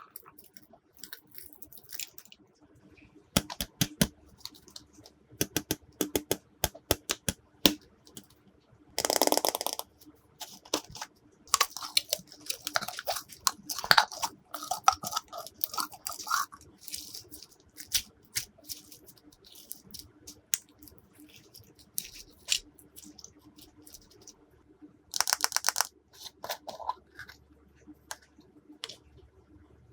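Glossy slime being worked by hand, making a run of sticky clicks and crackly pops as it is pressed and stretched. Two louder squelching bursts come about a third of the way in and again near the end.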